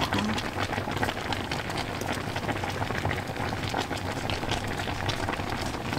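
Spicy braised dried pollock (kodari-jjim) bubbling at a boil in a shallow pan: a steady, dense crackle of many small pops.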